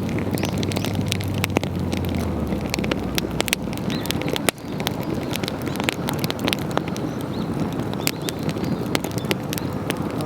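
Wood campfire crackling, with frequent sharp pops and snaps over a steady rush of noise. A low hum sits underneath for the first couple of seconds, and the sound dips briefly about halfway through.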